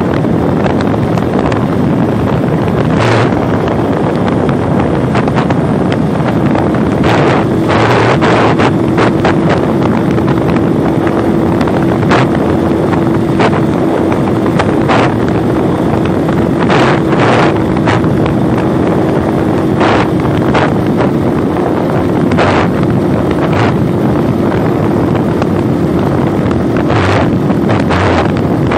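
Motorcycle riding along a rough dirt road: its engine runs under heavy wind buffeting on the microphone, with sharp knocks from bumps in the road. A steady whine comes in about six seconds in.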